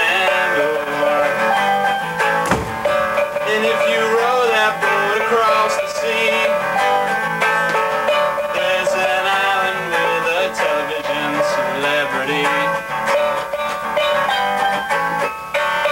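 The show's theme song playing: music with plucked guitar. There is a brief thump about two and a half seconds in.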